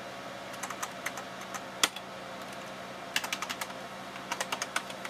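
Computer keyboard keys being pressed while typing at a DOS prompt: short runs of quick keystrokes, with one louder single keystroke about two seconds in.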